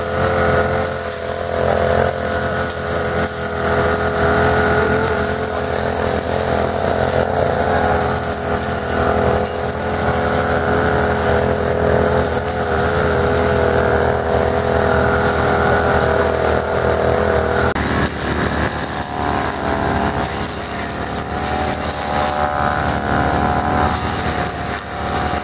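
Backpack brush cutters' small petrol engines running steadily while cutting grass, their pitch wavering a little.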